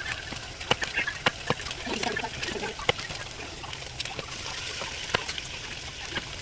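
Food sizzling in olive oil in a cooking pot: a steady hiss with irregular pops and crackles.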